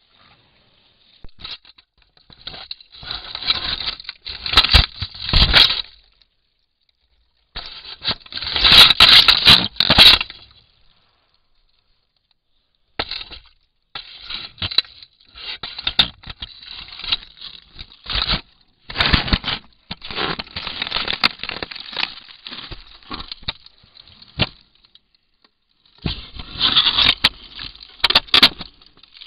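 Bushnell Trophy Cam trail camera being knocked about and scraped by an African elephant's trunk, heard through the camera's own microphone: irregular bouts of scraping, knocking and rubbing with silent gaps between, loudest about nine seconds in, with sharp cracks among them.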